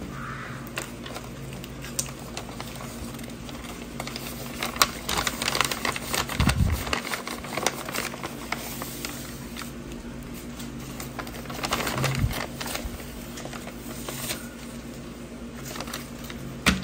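Paper rustling and crinkling as hands handle a hand-made paper bag and paper cards on a wooden table, with light taps and two dull thumps about a third and two-thirds of the way through.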